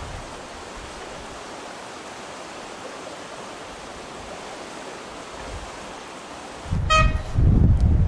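AC Cars railbus horn giving one short toot about seven seconds in, over a steady outdoor hiss. Wind rumbles on the microphone from just before the toot.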